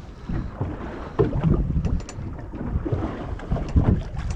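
Wind buffeting the microphone aboard a fishing boat at sea, an uneven low rumble, with faint voices in the background.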